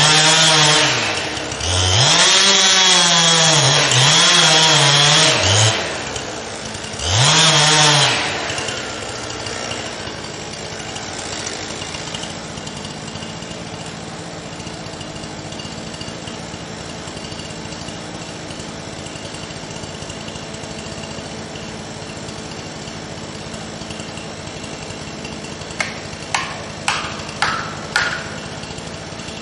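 Gas chainsaw at full throttle cutting wood, its pitch dipping and recovering several times, then dropping to a steady idle about eight seconds in. Five sharp knocks come near the end.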